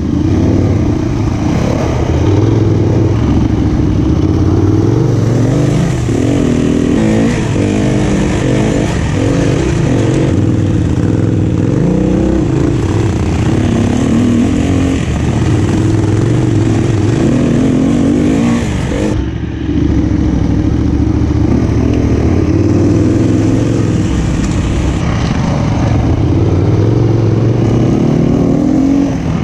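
SWM 300RS enduro motorcycle's single-cylinder engine running under constantly changing throttle while riding off-road, its pitch rising and falling, with a brief dip about two-thirds of the way through.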